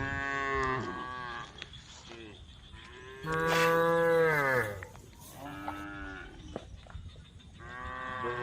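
Cows mooing: four long calls one after another, the loudest in the middle dropping in pitch as it ends.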